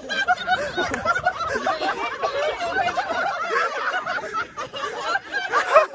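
Several people laughing and chattering at once, many voices overlapping.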